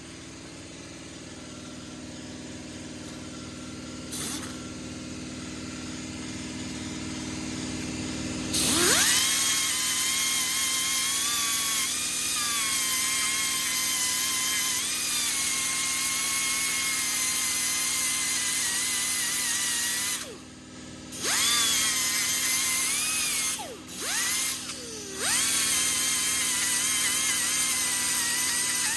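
A 90-degree die grinder starts about a third of the way in, its whine rising quickly to a steady high pitch as it grinds rust off a brake caliper bracket's pad contact points. Near the end it is released and restarted a few times, winding down and spinning back up. Before it starts, a steady low hum.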